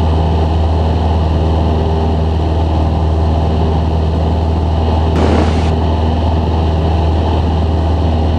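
Cessna 172's piston engine and propeller running at takeoff climb power, a loud steady drone heard in the cabin. A brief hiss cuts in about five seconds in.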